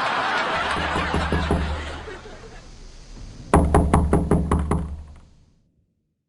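Rapid knocking strikes: a burst of about six sharp, ringing knocks a little past the middle, after lighter knocks under a noisy wash early on, then fading away to silence.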